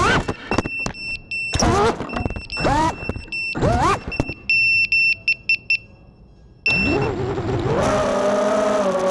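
FPV freestyle quadcopter's brushless motors (T-Motor F60, Gemfan props) whining in short throttle punches, the pitch swooping up and falling back, with loud knocks between them and a run of high beeps in the middle. Near the end a steady humming tone comes in.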